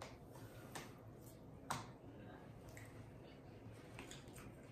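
Quiet eating sounds: a few short, sparse clicks and smacks from chewing and plastic forks on takeout trays, the sharpest a little under two seconds in.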